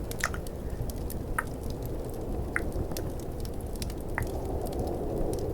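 Four mouth tongue clicks, each a short hollow pop, spaced about a second apart, over a steady bed of added fireplace crackle and snowstorm wind ambience.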